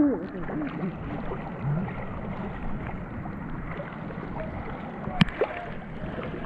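Stream water rushing and sloshing around people wading through it, with a gurgle now and then and one sharp knock about five seconds in.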